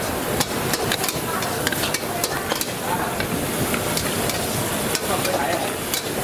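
Food frying and sizzling in a hot pan while being stirred, with many quick sharp clicks of a utensil against the pan.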